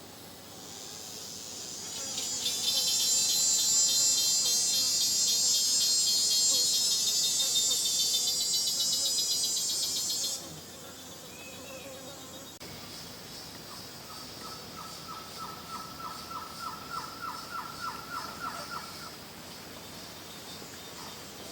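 Rainforest insect chorus: a high, buzzing drone swells in over the first couple of seconds, holds loud and even, then cuts off suddenly about halfway through. A fainter high insect hum follows, joined for about five seconds by a lower, rapid pulsed trill of roughly five pulses a second that grows slightly louder before it stops.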